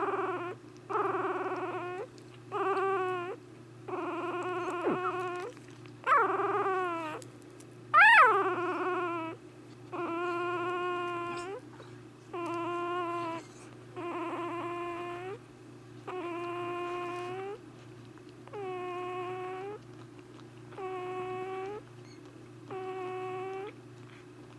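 Newborn miniature dachshund puppy crying: a run of short whimpers at first, then a louder cry that falls in pitch about eight seconds in, then a regular series of even cries about a second long, roughly every two seconds.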